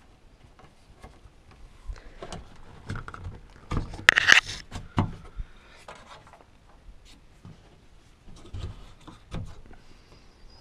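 Hands feeding a cable through the loosened plastic window frame and rubber seal of a UTV cab: scattered knocks, clicks and rubs, with the loudest a scraping rustle about four seconds in.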